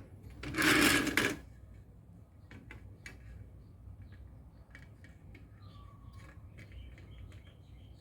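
A brief loud rush of noise about half a second in, then scattered small clicks and taps of hands working on power-supply parts as new thermal paste goes on.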